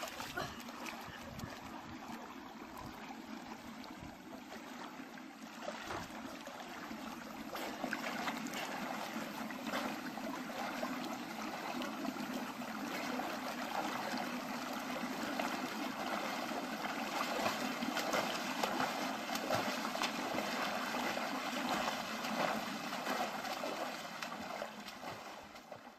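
Pool water splashing and trickling as a child swims, a steady watery wash that fades out at the very end.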